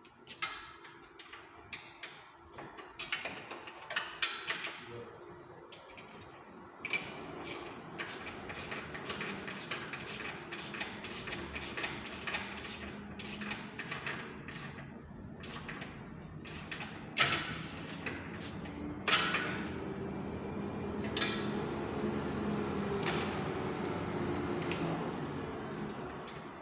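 Hand tools clicking and knocking against metal parts on the underside of a car raised on a lift. Scattered clicks give way to a dense, steady run of clicking from about seven seconds in, with two louder knocks past the middle.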